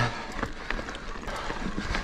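Mountain bike riding over a rough, stony dirt trail: tyre noise on gravel and dirt with a low rumble and scattered small knocks and rattles from the bike.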